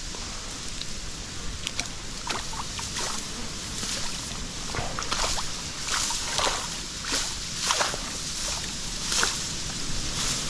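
Water splashing and sloshing in irregular bursts, about one every second, as a hooked fish thrashes at the surface during the fight.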